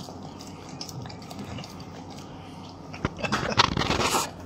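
Bulldog licking up pumpkin puree: a quick run of wet, smacking licks starting about three seconds in.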